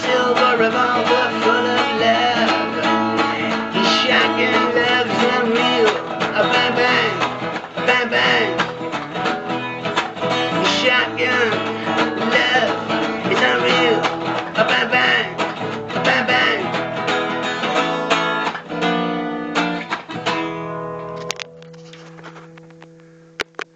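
Guitar strumming through an instrumental outro, slowing to a few separate chords and ending on a final chord that rings and fades. There is a click near the end.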